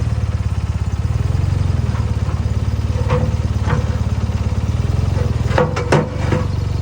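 Small backhoe's engine idling steadily, with a few short metal clanks near the end as the pallet forks are worked onto the loader bucket.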